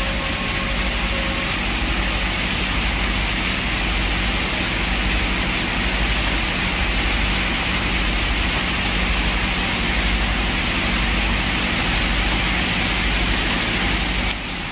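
Heavy rain pouring down steadily in a torrential downpour.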